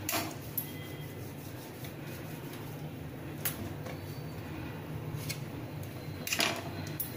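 Small kitchen knife cutting soft gram-flour dough sticks into pieces, its blade tapping sharply on a stone countertop a few times, with the loudest cluster of taps near the end. A steady low hum runs underneath.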